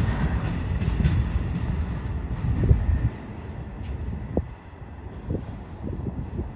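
Freight cars of a slow-moving train rolling past, a low rumble with wheel clicks. The rumble drops away about three seconds in, leaving gusts of high wind buffeting the microphone with scattered low thumps.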